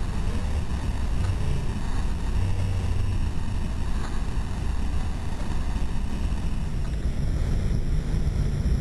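Steady low rumble of a car heard from inside its cabin in the rain, engine and wet-road noise, with a fainter hiss above it.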